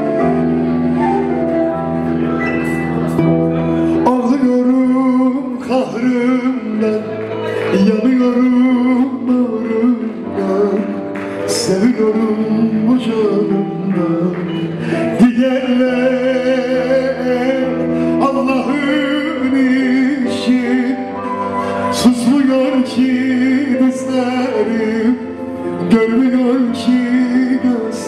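Live Turkish band music: bağlama, flute and keyboard playing a slow folk-style melody, with a male singer's voice over it.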